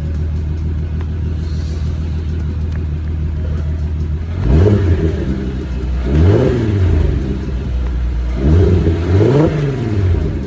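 A swapped-in 3.6 VR6 engine in a 1992 Volkswagen Corrado, breathing through custom headers, resonator and Magnaflow muffler, idling steadily and then blipped four times, each rev rising and falling quickly, the last two close together near the end.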